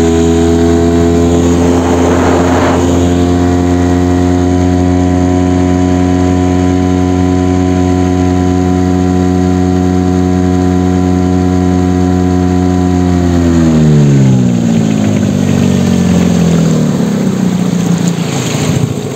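Small boat motor running at a steady speed, then slowing down about thirteen seconds in with a falling pitch, and running unevenly after that.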